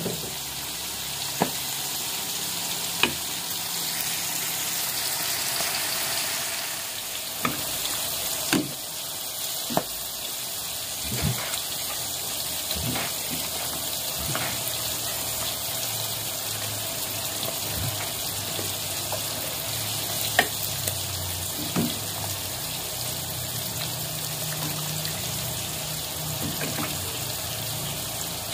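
A metal ladle scooping soup from an aluminium pot and pouring it into a bowl: liquid splashing, with scattered sharp clinks of the ladle against the pot and bowl, over a steady hiss.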